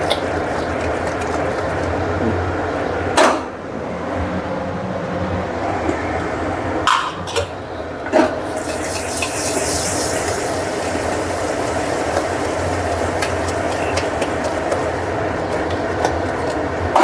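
Mutton curry being stirred in an open aluminium pressure cooker over a gas flame: a steady sizzle, with about four sharp knocks of the spoon against the pot.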